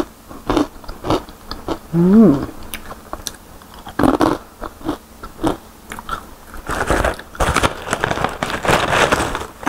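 Close-miked crunching and chewing of a crispy fried sweet potato chip, with scattered sharp crunches and a short hummed 'mm' about two seconds in. Near the end, the kraft-paper snack pouch rustles for a few seconds as it is handled.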